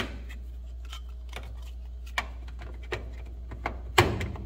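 Clear plastic oil drip tray being fitted onto a range hood's blower housing: a string of sharp clicks and knocks of plastic against metal, the loudest near the end.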